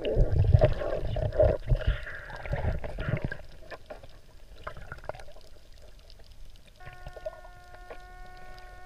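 Water rushing and bubbling against the camera as it goes under, loud for the first three seconds, then quieter underwater noise with small clicks. About seven seconds in, a steady electronic tone with several overtones starts and holds: the underwater metal detector sounding on a target.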